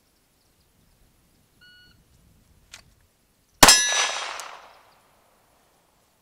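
A shot timer gives a short electronic beep, and about two seconds later a Glock 19X 9mm pistol, drawn from a concealment holster, fires a single shot. The round hits a steel target, which rings with a metallic clang that fades over about a second.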